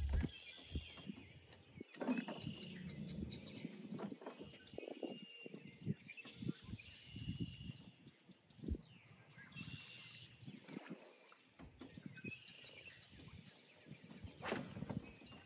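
A songbird singing a short, high phrase over and over, about every three seconds, with scattered small knocks and handling noises underneath.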